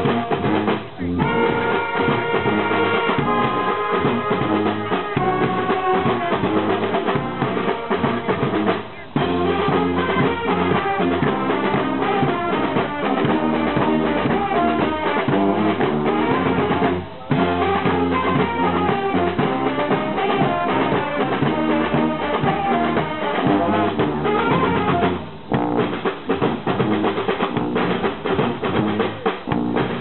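Brass marching band playing live: sousaphones and saxophones over a bass drum with cymbal and snare drums. The band drops out for a moment about every eight seconds.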